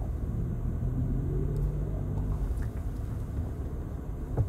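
Low, steady rumble of a car engine running, with a short thump near the end.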